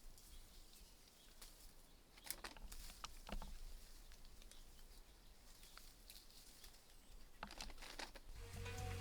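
Faint rustling with scattered crackles and snaps of leaves and twigs being handled, a few clusters of them. Music comes in near the end.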